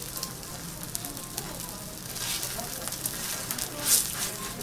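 Thick A5 Kobe beef steak searing on a hot teppanyaki griddle: fat sizzling and crackling with many small spits. It grows louder from about two seconds in, with a sharp burst of sizzle near the end.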